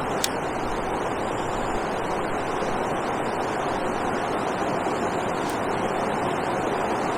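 Steady rush of water pouring over a river weir, with one sharp tick just after the start and another about five and a half seconds in.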